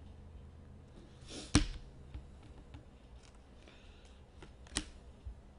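Hockey trading cards and packs being handled on a table: light rustling and small ticks, with two sharper clicks or taps, the louder about a second and a half in and another near the end.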